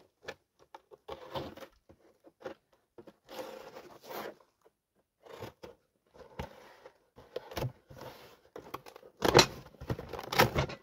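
Plastic wrapping rustling and cardboard packaging scraping and bumping in short bursts as a new wood stove's packed parts are handled, with the loudest clatter about nine seconds in.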